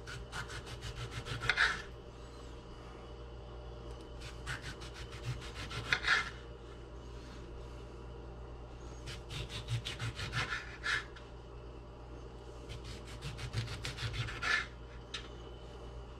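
A kitchen knife saws through a tomato in four bursts of quick back-and-forth strokes, cutting thin slices. Each burst ends with a sharper tap as the blade reaches the cutting board.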